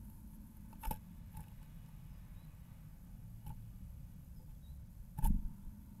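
A blue tit moving about inside a wooden nest box: a few sharp knocks and taps on the wood, one about a second in and the loudest near the end, over a low steady rumble.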